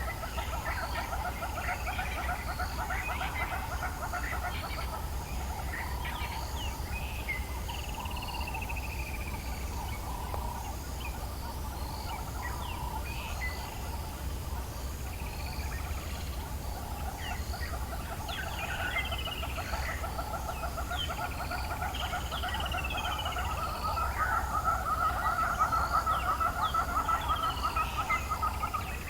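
African bush dawn chorus: many birds chirping and giving short downward-sliding whistles over a steady, fast-pulsing trill, which swells for a few seconds near the end.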